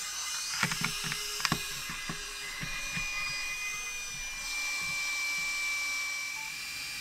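Small battery fan of a BarrelCool barrel cooler running with a steady high whine, with a handful of plastic clicks and knocks in the first three seconds as the unit is pushed into a rifle's action.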